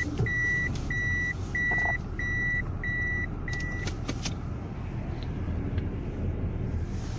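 Reversing beeper sounding a steady series of high beeps, a little under two a second, while the car is in reverse; it stops about four seconds in as the car pulls away. Under it, the low hum of the car running, heard from inside the cabin.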